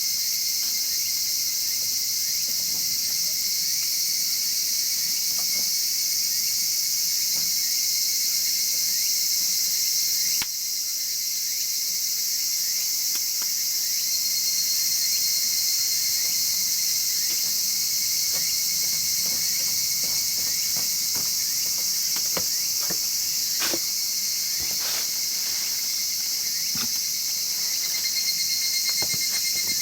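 A steady, high shrill insect chorus, with scattered sharp crackles and pops from a wood fire burning in a chimney fire pit, the pops coming more often in the second half.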